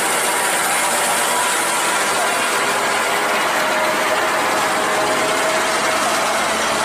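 Kato truck-mounted crane running, a steady dense mechanical grinding noise with a faint whine coming in about halfway through.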